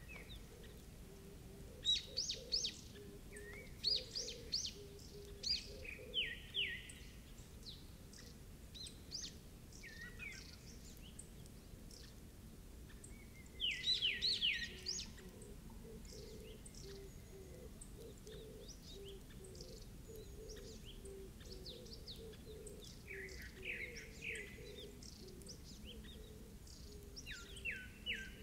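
Wild birds calling: clusters of short, sharp chirps that sweep down in pitch, coming every few seconds with the loudest cluster about halfway through, over a faint steady low background.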